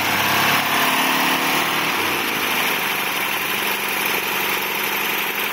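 1964 Dodge Dart's slant-six engine running with the hood open, its pitch dropping back to a steady idle about two seconds in.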